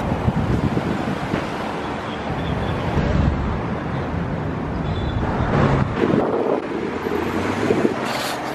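Wind buffeting the microphone over the steady noise of passing street traffic.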